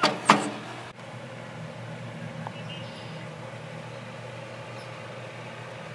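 A sharp clack a fraction of a second in as the payphone's handset is hung back in its metal cradle, followed by a steady low background rumble.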